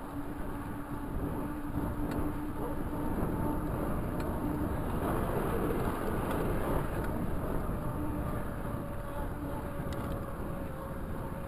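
Wind on the handlebar-mounted microphone and tyre noise from a Raleigh Talus 29er mountain bike rolling along a paved trail, a steady rumble with a faint hum in it. The rumble is a little louder around the middle while the bike crosses a bridge deck.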